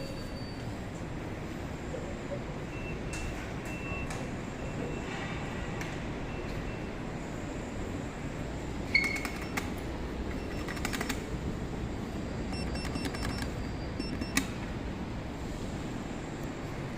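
Steady low background noise while waiting for a lift, with a few faint clicks and a short high beep about nine seconds in.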